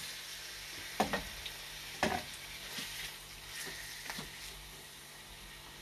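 Pork sautéing in a pan with garlic and onion: a steady sizzle, with a utensil knocking and scraping against the pan four times, about a second apart.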